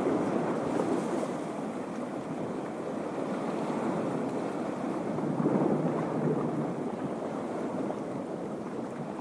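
Sea waves washing against a rocky shore, swelling near the start and again about halfway through, with wind noise on the microphone.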